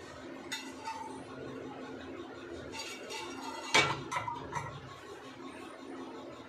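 Dishes and utensils clinking: a few light, sharp clinks, with the loudest a little past the middle followed by two or three smaller ones.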